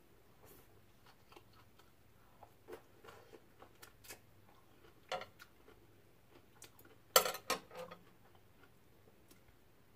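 Soft scattered clicks and smacks of chewing raw dandelion salad close to a lapel microphone, then a short metallic clatter about seven seconds in as metal chopsticks are set down in a frying pan.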